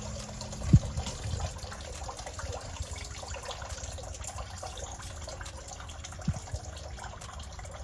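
Everbilt submersible sump pump running in a sump pit, with water trickling and churning as it pumps the pit down, and a faint steady hum. Two brief low thumps, about a second in and near the end.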